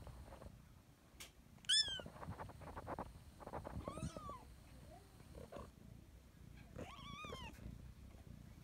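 Five-week-old kitten meowing three times, thin high meows that each rise and fall in pitch. The first, about two seconds in, is the highest and loudest. Soft rustles and taps fall between the meows.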